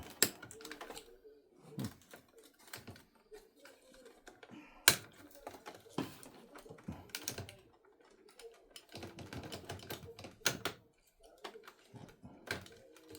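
Irregular plastic clicks and knocks from hands handling the opened casing and internal parts of an Epson EcoTank inkjet printer, with one sharper snap about five seconds in.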